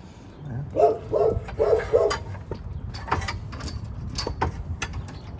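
A dog barks four times in quick succession about a second in, followed by a few sharp clicks and knocks.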